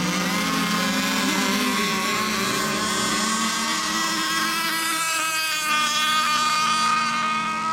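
Several radio-controlled racing boats running flat out, their small engines making a steady high-pitched whine. One boat passes close about four to five seconds in, its pitch dropping as it goes by.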